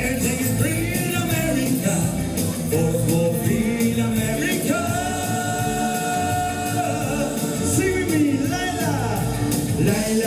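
Man singing live into a handheld microphone over instrumental music, holding one long note about halfway through.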